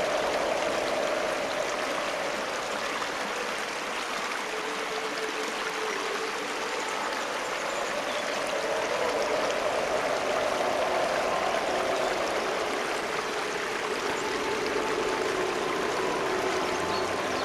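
Aquarium water running and trickling steadily, without a break.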